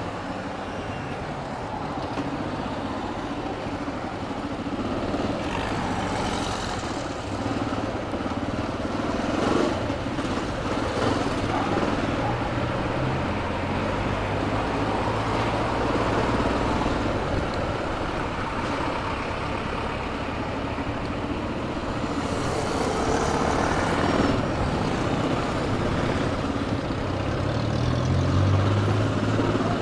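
Yamaha XT 600's single-cylinder four-stroke engine running under way in town traffic, its note changing with the throttle, over steady road and wind noise.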